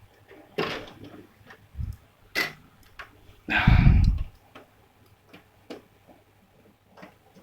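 Handling of a driver CD at a PC's disc drive: a string of sharp clicks and knocks, with a heavier, deeper thump about halfway through, as the disc is loaded into the drive.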